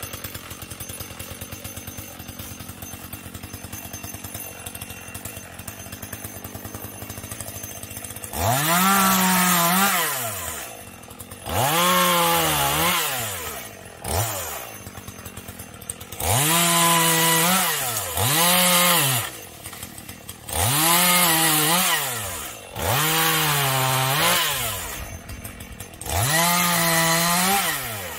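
Chinese-made two-stroke chainsaw idling for about eight seconds, then opened up to full throttle about eight times. Each time the engine note rises, holds for one to two seconds and drops back to idle; one of the surges is only a short blip.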